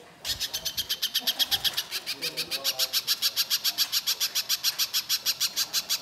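Little spiderhunter (pijantung pisang) giving a long, rough, rapid chatter: a fast unbroken run of sharp repeated notes, about eight a second. It starts after a brief pause.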